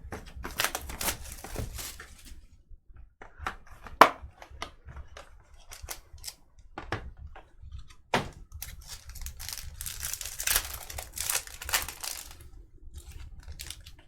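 A sealed box of trading cards being opened by hand: a string of sharp clicks and taps as the box is handled, then a long stretch of crinkling and tearing of its plastic wrapper about ten seconds in.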